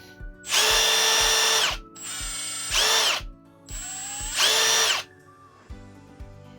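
Milwaukee M18 cordless impact driver's motor running free with no load, a steady whine in three trigger pulls of about a second each; the second and third start lower and step up to full speed.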